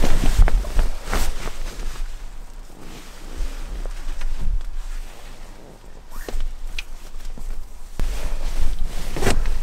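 Close rustling, scraping and knocking of a person moving about and handling gear on the forest floor, with a low rumble of handling noise. It is busiest at the start and near the end, quieter in the middle, with a brief high squeak about two-thirds of the way through.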